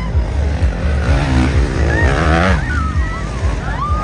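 Motocross dirt bikes racing past, one engine revving up with a rising pitch about a second in and dropping away after about two and a half seconds.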